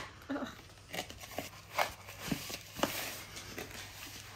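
A fork scraping and clicking against a plastic mixing bowl as shortening and sugar are creamed together by hand, in uneven strokes.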